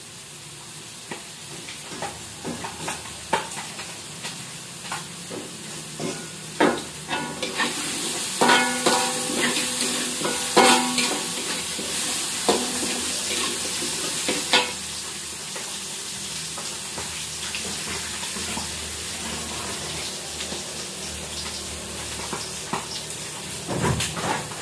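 Food sizzling in an aluminium wok on a gas stove while a metal spatula stirs it, scraping and clicking against the pan in quick irregular strokes. The sizzle grows louder about seven seconds in, and the spatula strokes thin out in the second half.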